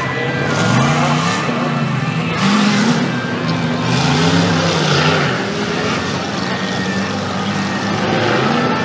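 Engines of 4WD off-road race vehicles revving, several at once, their pitch repeatedly rising and falling as they accelerate and ease off.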